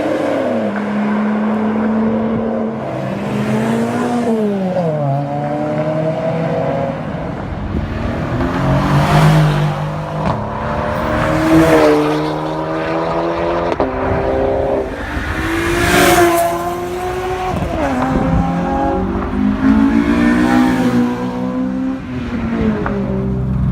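Supercar engines revving and accelerating, their pitch climbing and falling again and again with throttle blips and gear changes, at times more than one engine at once. The loudest moments come about 9, 12 and 16 seconds in.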